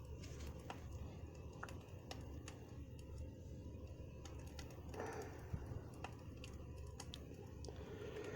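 Campfire crackling: irregular small snaps and pops from burning wood over a steady low noise.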